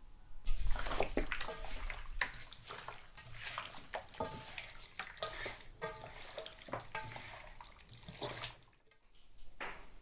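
Water splashing and pouring in a rapid, irregular series of splashes with gurgles, stopping briefly near the end.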